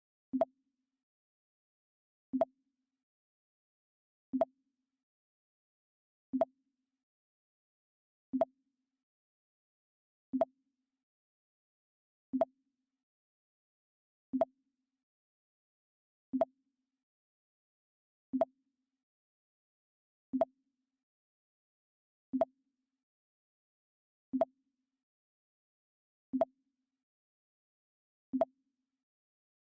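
Mac OS X 'Pong' system alert sound, a short hollow pong, repeating every two seconds, fifteen times, with silence between.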